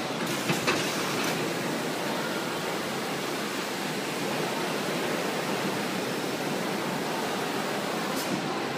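Steady, even machinery noise from a carton palletizer running on a factory floor, with a few sharp clicks in the first second or so and one more near the end.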